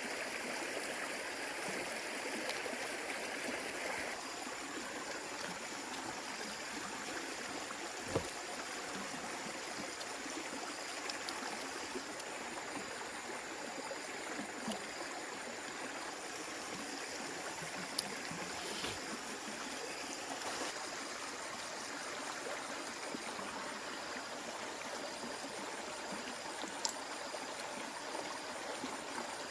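Stream water running steadily over rocks. Three brief knocks, at about 8, 18 and 27 seconds, stand out above it.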